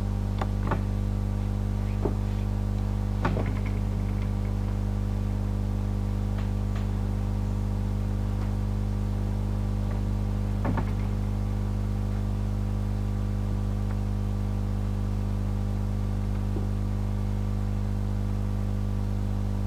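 Steady electrical mains hum from the recording setup, a low buzz that does not change, with a few faint clicks in the first half.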